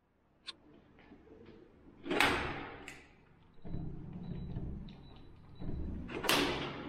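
Knocks and thuds: a sharp click about half a second in, then two louder bangs about two and six seconds in, with a low rumble between them.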